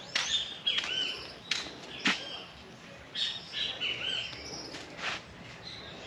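Birds calling and chirping: many short chirps and gliding notes, some sharp and abrupt, coming one after another.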